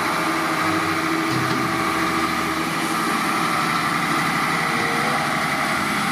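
Mercedes-Benz Actros concrete mixer truck's diesel engine running steadily as the truck pulls slowly forward.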